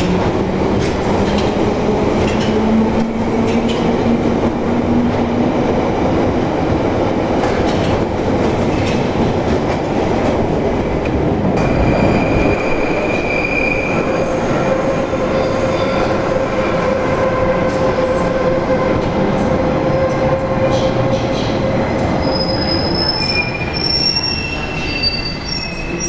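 London Underground 1972 Stock tube trains on the Bakerloo line. A train pulls away from the platform with a motor whine rising in pitch over the first few seconds, over a heavy steady rumble in the tunnel. From about halfway through, the next train comes in along the curved platform track, and its wheels squeal with several high-pitched squeals near the end.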